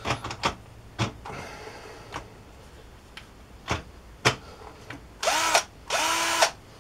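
Workzone 12 V cordless drill's motor spinning up in two short bursts near the end, about half a second each, after a few scattered knocks and clicks; it is trying to back out a long screw with a broken bit, and the screw doesn't undo.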